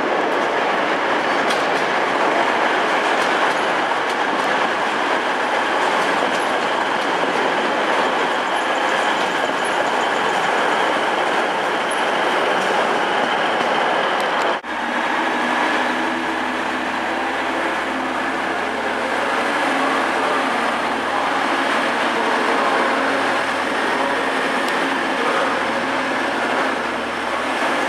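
TransPennine Express Class 185 diesel multiple unit moving slowly along the platform: its diesel engines running steadily, with wheels rumbling and clicking over the rails. About halfway through the sound changes abruptly and a low, steady engine hum comes through more clearly.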